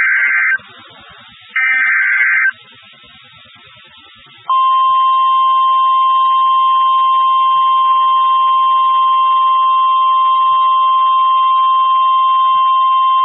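Emergency weather alert data header: two short, loud bursts of shrill warbling digital tones about a second apart. About four and a half seconds in, the steady single-pitch NOAA Weather Radio warning alarm tone (1050 Hz) begins and holds, the signal that a warning, here a severe thunderstorm warning, is being broadcast.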